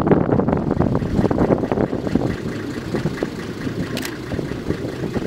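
Diesel engine of a Nanbu Jukan Railway KiHa 10 railbus idling steadily while the railcar stands still.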